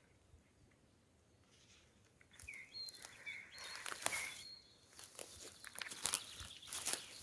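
Footsteps crunching over forest-floor litter, starting about two and a half seconds in after a quiet start, irregular steps each with a dry crackle. A few short high chirps sound among the first steps.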